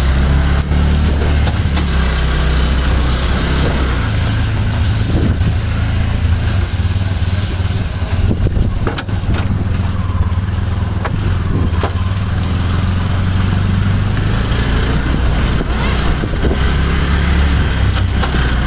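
A motor vehicle's engine running steadily, with a low hum and a constant hiss over it.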